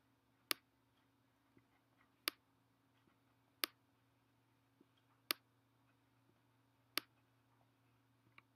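A stylus tapping on a tablet's screen while handwriting, giving five sharp clicks spaced about a second and a half apart, over a faint steady hum.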